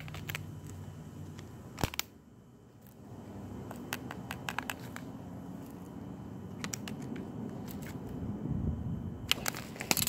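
Scattered clicks and crinkles of pliers working at the torn metal foil and casing of a burnt-out lithium-ion battery, with a denser clatter of clicks near the end.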